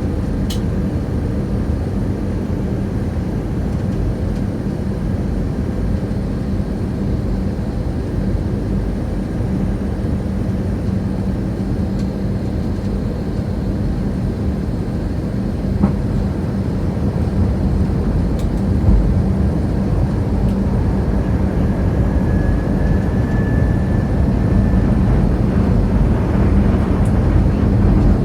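Steady drone of an aircraft cabin in flight: engine and airflow noise with a constant low hum.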